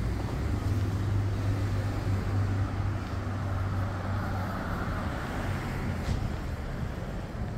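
City street traffic noise with a steady low hum that weakens toward the end, and a swell of rushing noise about halfway through.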